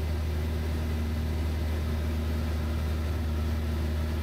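Van's RV-7 light aircraft in flight: steady drone of its piston engine and propeller, a deep hum with a steady higher tone over it.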